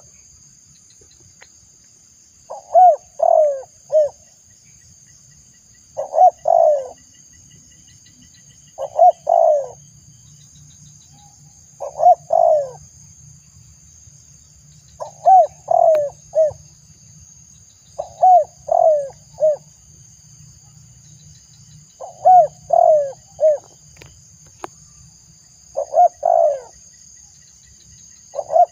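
Spotted dove (tekukur) cooing: a phrase of three or four low, swooping coo notes, repeated about every three seconds. A faint steady high hiss sits underneath.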